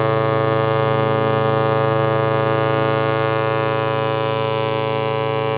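A ship's horn sounding one long, steady blast as a departure salute.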